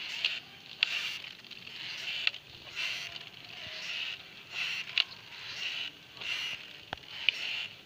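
Hand-cranked metal seviyan press, its screw forcing dough out through the die: a scraping sound with each turn of the crank, repeating about once a second, with a few sharp clicks.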